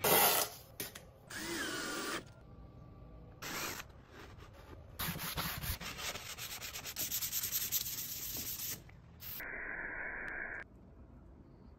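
Hand-sanding a plywood edge with a sanding sponge: a run of quick back-and-forth rubbing strokes. Near the end, an aerosol spray can hisses steadily for about a second and a half. Before the sanding there are shorter scraping and rubbing noises, starting with a loud burst right at the beginning.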